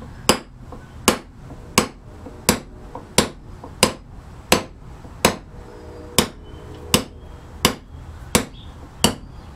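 Light, even taps of a hammer on a steel nail set, punching small decorative dots into a carved wooden panel, about one and a half strikes a second.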